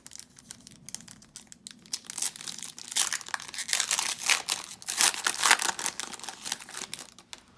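Foil wrapper of a 2019 Donruss Optic baseball card pack crinkling and tearing as it is pulled open by hand. The crackling is sparse at first and busiest from about two seconds in until near the end.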